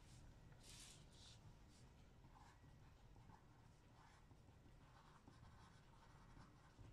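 Pencil writing on lined paper: faint scratching in a series of short strokes.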